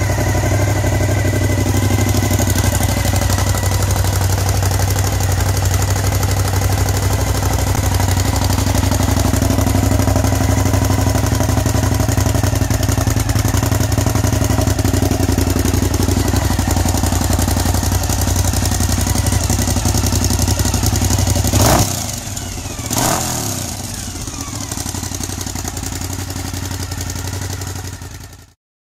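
Suzuki SV1000S's 996 cc V-twin running steadily through Scorpion titanium slip-on exhausts. About 22 seconds in there are two sharp cracks a second apart, and the steady engine note gives way to a quieter sound.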